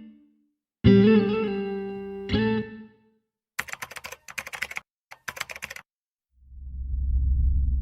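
Intro music: electric guitar chords ringing out, then a quick patter of sharp clicks, then a low hum that swells in near the end.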